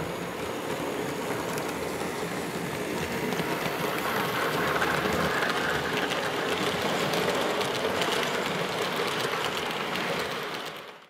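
Model freight train rolling past on the layout track: a steady running and clattering of small wheels and couplings, louder as the log wagons pass closest, then cutting off abruptly at the end.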